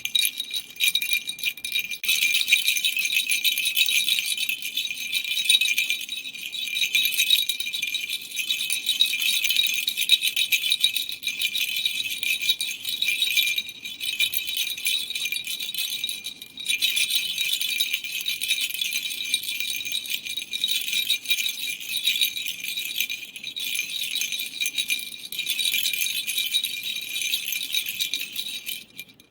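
Gun-shaped toy baby rattle shaken without letup, a bright, dense jingling rattle with a couple of short breaks about 14 and 16 seconds in.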